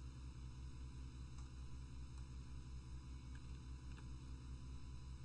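Steady low electrical hum with its overtones, the background hum of a home screen-recording microphone setup, with a few faint clicks.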